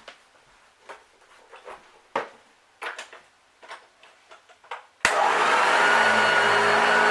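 A few light knocks and clicks, then about five seconds in a 1981 Hoover Junior U1012 upright vacuum cleaner switches on and runs steadily, its motor giving a steady whine.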